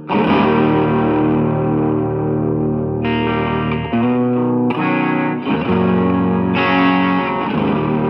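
Electric guitar with three single-coil pickups played through a Yamaha THR10C modeling amp set to its Mini amp model, strumming ringing chords. One chord is left to sustain for about three seconds, then a new chord is struck roughly once a second.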